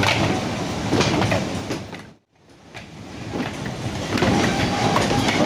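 Hybrid coconuts being unloaded: a dense clatter of many hard knocks over a steady rumble, cutting out briefly about two seconds in before resuming.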